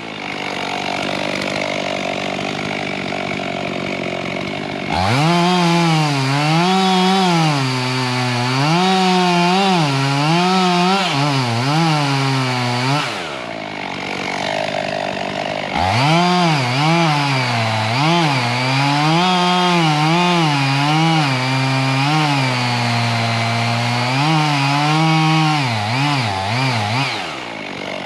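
Two-stroke chainsaw cutting into a dead oak trunk. It idles at first, then runs at full throttle with its pitch repeatedly dipping and recovering as the chain bites into the wood. It drops back to idle for a couple of seconds midway, then revs and cuts again before easing off near the end.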